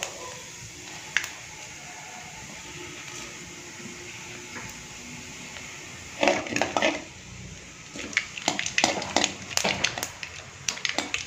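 Mustard and cumin seeds sizzling in hot oil in a kadai, with a few faint crackles. From about six seconds in, a metal spoon scrapes and knocks against the pan in quick strokes as the seeds are stirred.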